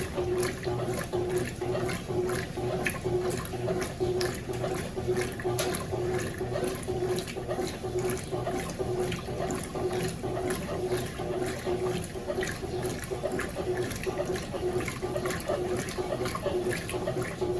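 Consul CWS12 12 kg top-load washing machine agitating a load of jeans in soapy water: the motor hums in short repeated pulses while the agitator swishes the wash back and forth, sloshing water steadily.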